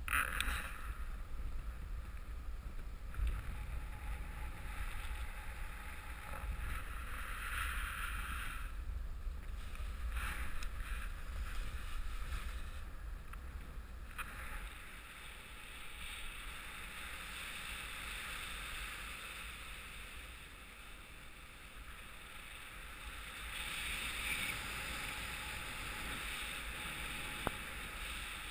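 Wind rushing over the camera microphone in paraglider flight: a steady low buffeting rumble with a hiss on top that swells and eases, dropping back in the middle and picking up again near the end.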